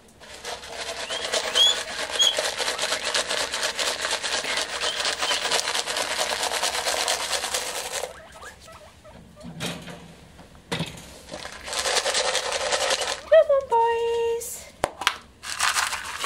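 Guinea pigs in their cage: a long spell of fast crackling rustle over the first half, then a single squeal (wheek) that rises at its start and then holds, a little before the end.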